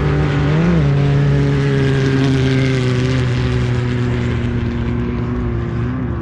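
Off-road race vehicle's engine running at high, steady revs, with a short blip in pitch under a second in and a slight easing off near the end.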